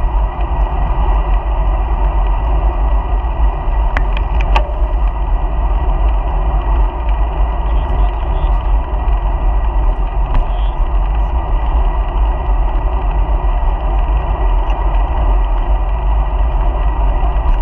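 Steady wind and road noise from a bicycle ride, the wind buffeting a bike-mounted camera's microphone. A few sharp clicks come about four seconds in.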